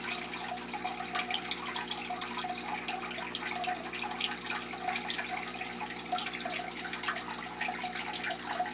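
Aquarium water running steadily through the tank's filter: continuous bubbling and trickling with a low steady hum underneath.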